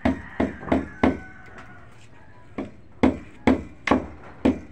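Hammer blows on wooden framing: four quick strikes, a pause of about a second and a half, then a steady run of strikes about two a second.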